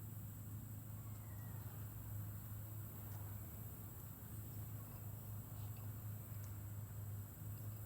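Faint outdoor ambience: a steady high-pitched insect drone over a low steady hum, with a few faint ticks.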